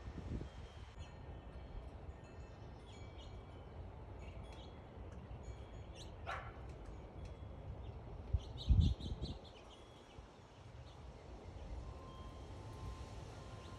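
Small backyard songbirds chirping: many short, high chirps scattered throughout, with one longer call sliding steeply down in pitch about six seconds in. A brief low thump, the loudest sound, comes about two-thirds of the way through, over a steady low outdoor rumble.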